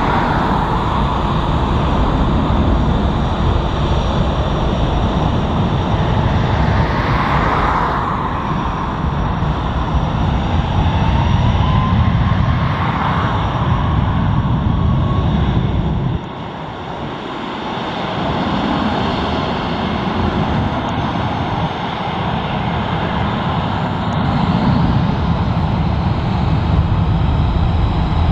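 Airliner jet engines running on the airfield: a steady, loud engine noise with a deep rumble and a faint whine that slides up and down in the first half. The rumble drops out suddenly about halfway through, then builds back.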